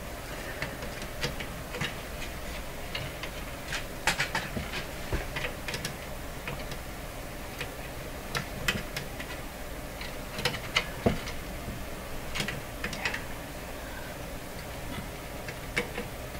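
Heavy-duty pliers working on wire leads and solder lugs inside a tube radio's metal chassis: irregular small metallic clicks and scrapes, loudest in clusters about four seconds in and again around eleven seconds.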